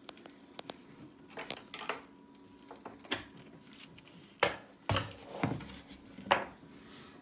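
Hand-handled lift-out O scale model railroad bridge, an MTH 30-inch truss bridge with track screwed on, clicking, knocking and rattling as it is lifted out of the layout gap. It makes about a dozen sharp knocks and clicks, the loudest coming in a cluster between about four and a half and six and a half seconds in.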